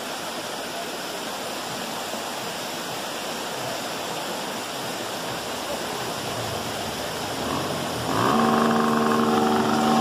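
Waterfall and stream rushing steadily. About eight seconds in, an engine comes in over the water, rising briefly in pitch and then holding a steady hum louder than the falls.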